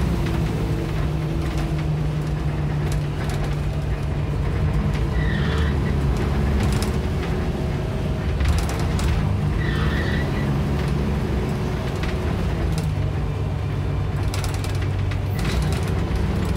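Volvo B10BLE single-deck bus on the move, heard from inside the passenger saloon: steady engine and drivetrain drone with its pitch shifting a few times as the bus changes speed, over road noise and light interior rattles. Two short high chirps sound about five and ten seconds in.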